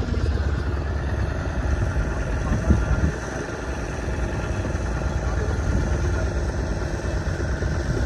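Motorboat engine running steadily as the boat moves across open water, a steady low hum. A brief thump comes a little under three seconds in.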